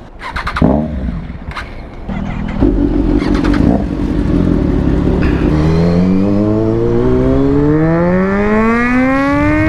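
A few knocks, then a sport motorcycle's engine running from about two seconds in. From about halfway it pulls away and accelerates in first gear, its pitch rising steadily.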